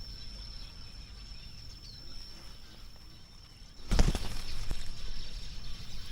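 A single sharp crack about four seconds in from a Humer X air rifle shot fired without its silencer, over wind rumbling on the microphone. A steady high-pitched whine runs underneath, and the wind noise rises after the shot.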